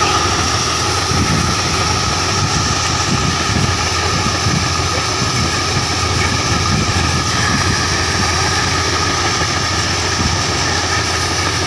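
Combine harvester running steadily while its unloading auger pours threshed wheat out of the spout, an even mechanical drone with a steady whine over it.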